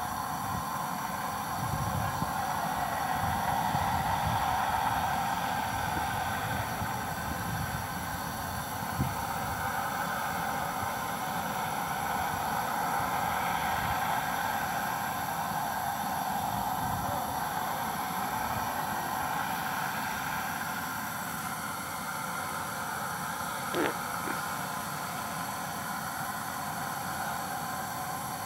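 Water from a pipeline hydrostatic test being released under pressure as a high spray, giving a steady rushing hiss with an uneven low rumble beneath. A brief sharp sound stands out about 24 seconds in.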